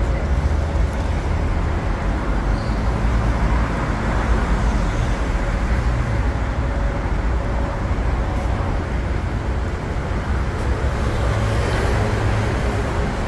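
Steady road traffic noise from a busy city street, with car engines and tyres blending into an even rumble.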